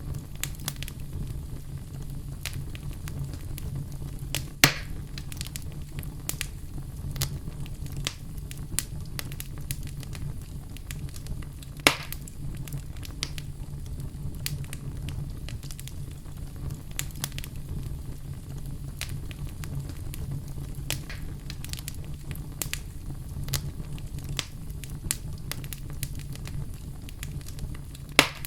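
Campfire crackling: a steady low rumble of burning wood with frequent small crackles. Three louder pops stand out, about five and twelve seconds in and near the end.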